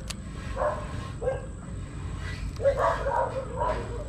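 A dog barking and yipping several times: two short yips early, then a quick run of barks later on.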